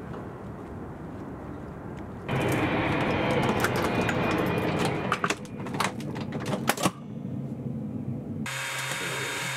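Clicks and knocks on a twin-turboprop aircraft's fold-down cabin airstair as someone climbs aboard. Near the end a steady electrical hum from the aircraft's cabin equipment takes over.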